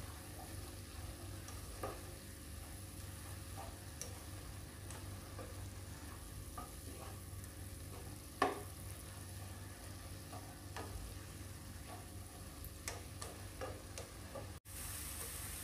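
Plastic spatula stirring and scraping chopped broccoli and egg around a non-stick pan, with a faint frying sizzle underneath and scattered light taps of the spatula on the pan, the loudest about halfway through.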